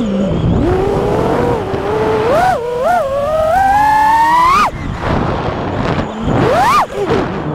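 Brushless motors and propellers of an FPV freestyle quadcopter (T-Motor F60 Pro motors) whining with the throttle. The whine climbs steadily in pitch for about four seconds and then drops off abruptly. Near the end there is a quick, steep rise that cuts off sharply, over a rushing noise.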